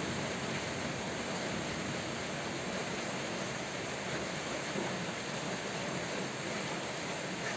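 Steady rain falling, an even hiss that holds at a constant level.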